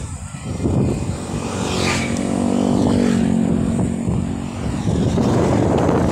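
A motorcycle passing the moving bicycle, its engine note swelling and then dropping in pitch as it goes by about two seconds in. Wind buffets the microphone from about five seconds in.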